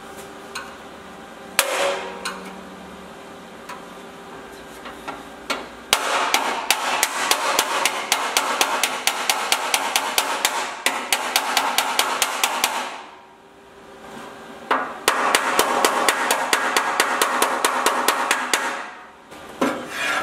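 Hammer and dolly beating on the steel flange of a car door frame: a single knock, then two long runs of rapid, even strikes, about four a second, with the thin sheet metal ringing between blows.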